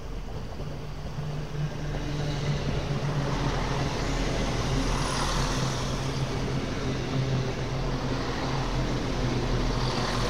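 Diesel train running through the station, its engine giving a steady low hum over a rushing noise that builds about one and a half seconds in and then holds.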